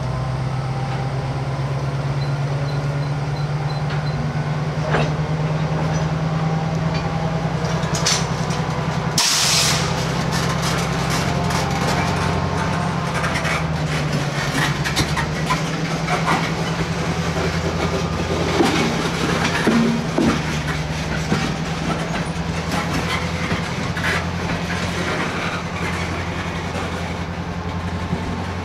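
EMD SW-800 switcher locomotive's diesel engine running steadily as the train moves. A short, sharp burst of air hiss comes about nine seconds in, and scattered clicks and clanks of wheels and rail gear follow through the second half.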